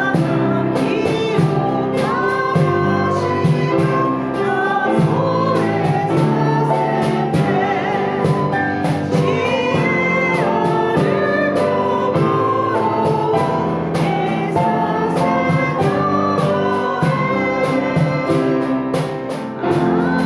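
A hymn sung by several voices together, with organ accompaniment, the sung melody held over sustained chords.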